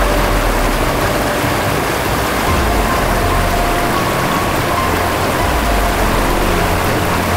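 Steady loud rush of pumped water pouring out, with a low motor rumble underneath, as a water pump drains a lake.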